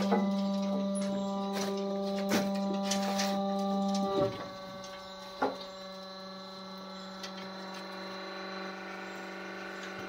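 Silage baler running with a steady machine hum, broken by a few sharp knocks in the first six seconds; the hum drops in level about four seconds in.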